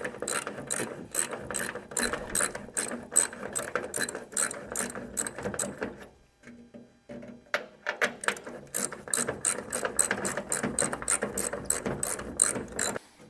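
Ratchet wrench clicking in quick, even strokes, about three or four clicks a second, while the hood bolts are backed out. The clicking stops for about a second and a half midway, then starts again.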